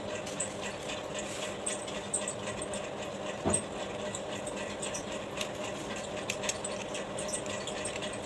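Steady low room hum with scattered faint ticks and rustles of a cardboard sheet being handled and pressed flat, and one brief louder knock about three and a half seconds in.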